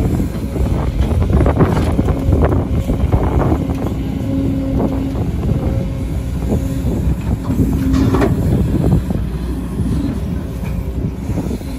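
Sumitomo SH210 hydraulic excavator's diesel engine running under load as the bucket digs into a pile of dirt and rocks and lifts it. A steady whine runs from about two seconds in to about eight seconds in, with scattered knocks and clatter of soil and stones.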